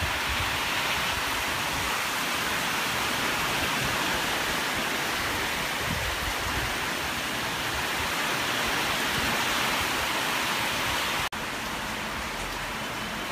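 Heavy rain pouring down, a steady hiss. It breaks off for an instant about eleven seconds in and comes back slightly quieter.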